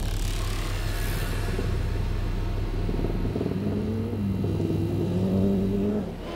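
Toyota Celica rally car engine revving hard as the car races on a dirt stage. The engine note rises and falls several times over a low rumble and is loudest a little after five seconds in.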